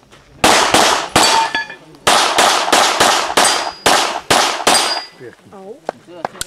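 A rapid string of about a dozen pistol shots: a quick burst of three or four, a short pause, then a faster run of about eight. Several shots are followed by the ringing clang of steel plate targets being hit.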